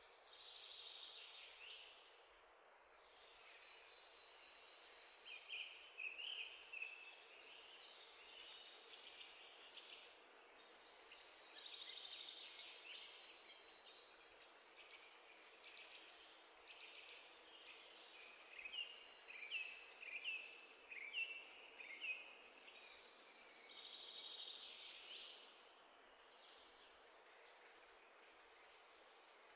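Faint birdsong: small birds chirping and twittering in high, quick notes, with runs of short falling chirps about a fifth and again about two-thirds of the way in.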